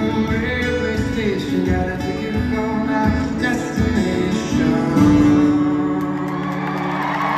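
Solo acoustic guitar played live in a large arena, finishing on a chord that is held and left ringing from about five seconds in. Crowd applause and cheering begin to swell near the end.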